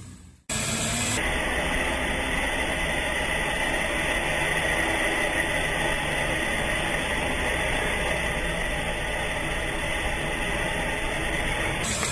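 Steady hissing noise with a faint constant high tone, starting abruptly about half a second in after a moment of silence, with no distinct knocks or motor sounds standing out.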